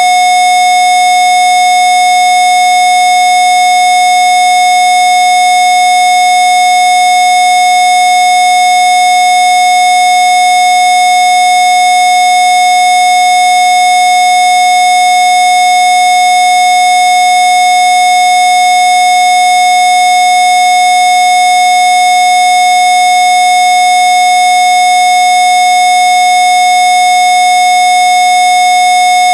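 Electronically generated sine-wave tone, a Rife 'healing frequency' in the 700-hertz range, held loud and perfectly steady with no break.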